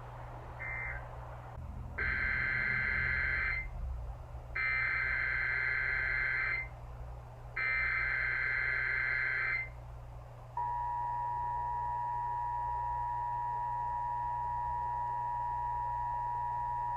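Emergency Alert System SAME header: three bursts of warbling digital data tones, each about two seconds long. They are followed, about ten seconds in, by the steady two-tone EAS attention signal, a harsh held chord that marks the start of a new alert.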